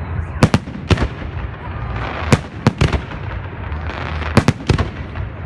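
Fireworks salute shells bursting overhead: a series of about nine sharp bangs, several in quick pairs, over a steady low rumble.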